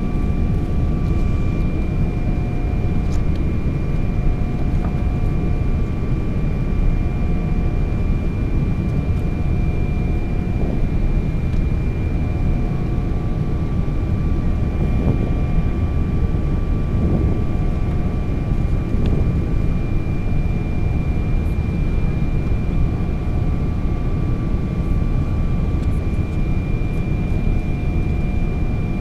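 Airliner cabin noise: a steady, loud deep rumble from the engines and air, with a few faint steady hums above it.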